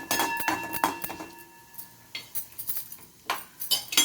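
A spoon scraping and clinking against a pan, stirring coriander seeds roasting in ghee. There is a cluster of strokes in the first second and again near the end, with a quieter stretch between.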